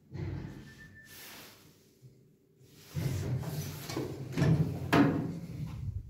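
A clunk at the start, then from about three seconds in the hinged landing door of a small lift is pulled open by hand, rattling, with a sharp metal clack about five seconds in.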